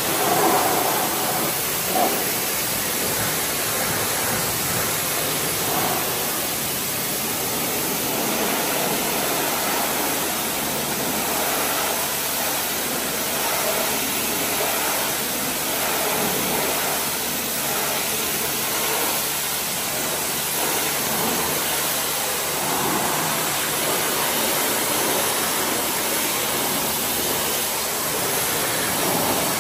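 High-pressure water jet from a pressure-washer lance spraying against a car's bodywork and rear window, a steady hiss of spray. There is one brief knock about two seconds in.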